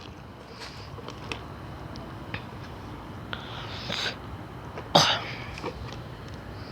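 Someone gulping soda, with small swallowing clicks, then a short, sharp breathy burst about five seconds in, as air comes up after drinking.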